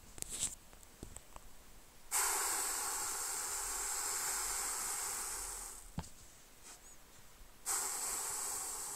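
Egg-eating snake (Dasypeltis) rasping its keeled body scales against one another as a threat display, a steady sawing hiss that mimics a saw-scaled viper. There is one burst of about three and a half seconds starting about two seconds in, then a second burst near the end, with a brief click between them.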